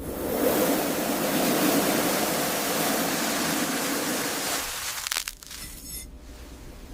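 A knife blade slicing through a foam cube: a steady, rough friction hiss for about four and a half seconds, followed by a few light clicks as the cut finishes.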